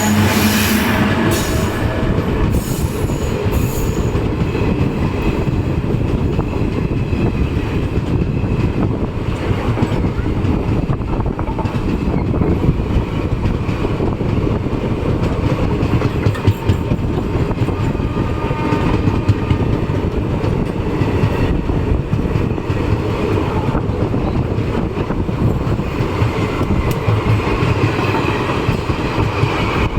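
Passenger train pulling out of a station, its coaches rolling past with a steady rumble and the clatter of wheels over the rails.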